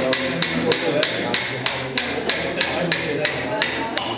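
Mallet striking a metal hip-replacement instrument, a femoral rasp, being driven into the end of a model femur. The sharp knocks come in a steady rhythm of about three a second.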